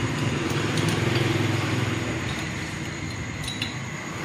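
Electric motor of a motorcycle rim-straightening machine humming steadily and slowly fading, with a few light metallic clinks.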